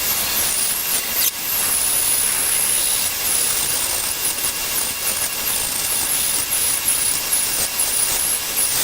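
Bandsaw running and cutting through a cherry and walnut block, with a high wavering squeal from the blade.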